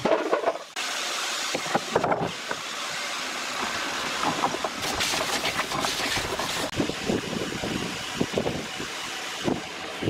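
Wooden boards being set down and shifted on metal pipe clamps and a wooden tabletop: scattered knocks and clatters over a steady hiss.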